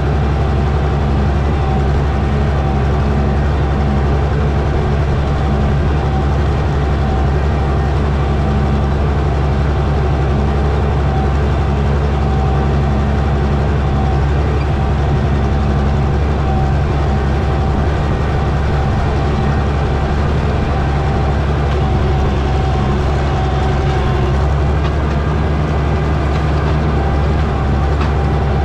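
Oliver Super 77 tractor's six-cylinder engine running steadily at an even speed while pulling a corn planter across the field, heard close to its upright exhaust stack.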